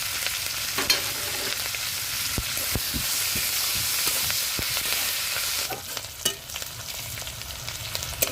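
Chopped onion and green chillies sizzling in hot oil in a kadai, stirred with a utensil that clicks and knocks against the pan. The sizzle eases about six seconds in.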